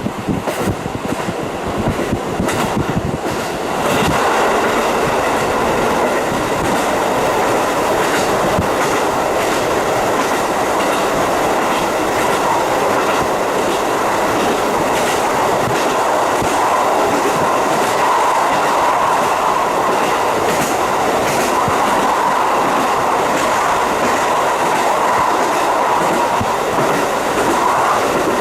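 KiHa 40 diesel railcar running along the line, heard through a fully open window: wheels clicking over rail joints, then about four seconds in the sound steps up to a steady, louder rush of running noise.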